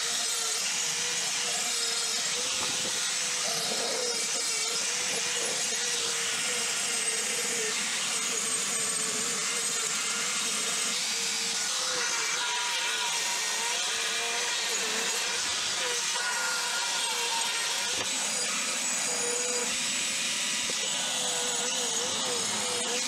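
Rotary tool with a sanding drum grinding the steel jaws of an old pincer: a steady high whine that wavers in pitch as the drum bears on the metal, over a gritty hiss.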